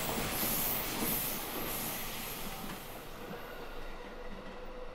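A freight train rolling past on the line, its steady rumble and hiss fading as the train moves away.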